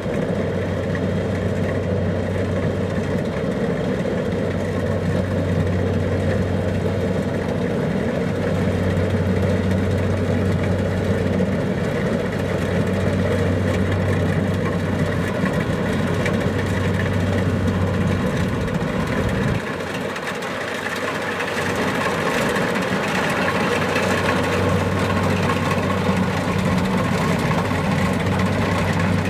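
Kubota DC-70 Plus rice combine harvester's diesel engine running steadily under working load, with a deep, even hum. About two-thirds of the way through, the deepest part of the hum falls away for a couple of seconds, then comes back.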